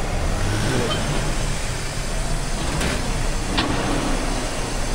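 A CD70-type motorcycle's small single-cylinder engine running against a steady factory din as the bike is ridden onto a roller test bench. Two short sharp knocks come a little past the middle.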